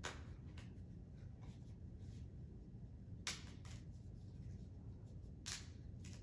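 A large altar-bread wafer being broken by hand over the paten: a few short, crisp snaps. The sharpest come right at the start, about three seconds in and about five and a half seconds in, with fainter cracks between, over a low steady room hum.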